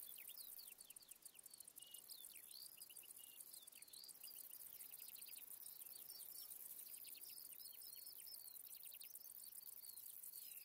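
A bush-cricket stridulating: a faint, very high-pitched, continuous buzz made of rapid ticks, with many short chirping notes lower in pitch running through it.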